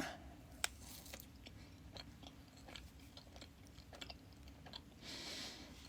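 Soft, faint chewing of a yogurt-filled marshmallow, with small wet mouth clicks scattered throughout and a short soft hiss about five seconds in.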